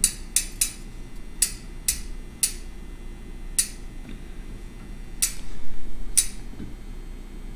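Rear hub's freehub giving sharp, irregular clicks, about nine of them, as the wheel with its new 12-speed cassette is turned slowly by hand.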